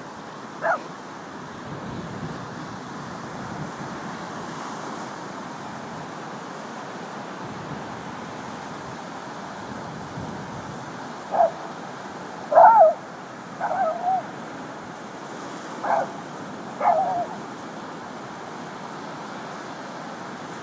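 Dogs barking over steady surf: one short bark about a second in, then a run of about six short barks in the second half.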